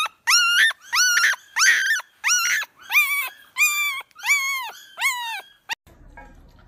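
German Shepherd whining in a steady run of high-pitched yelps, nearly two a second, each one rising, holding, then sliding down. The yelps stop abruptly near the end with a click, leaving faint room noise.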